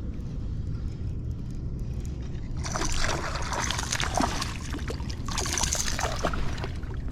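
Water splashing beside a kayak in two spells, about two and a half seconds in and again near five seconds, as a hooked small smallmouth bass thrashes at the surface, over a low steady rumble.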